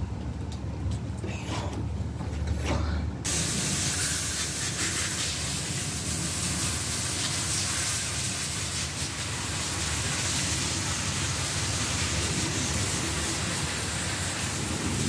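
Garden hose spray nozzle spraying water onto a plastic milk crate and the grass: a steady hiss that starts suddenly about three seconds in.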